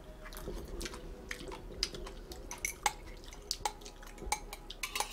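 Someone eating ramen: wet chewing sounds with a string of small, irregular clicks from a metal spoon and chopsticks on the thin aluminium (yangeun) pot lid used as a plate.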